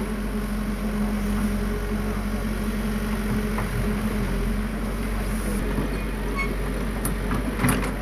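Caterpillar 312C hydraulic excavator's diesel engine running steadily as the machine works its boom and bucket. A short knock comes near the end.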